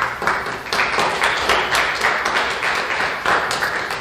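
Audience applauding: many hands clapping together, starting suddenly and dying away at the end.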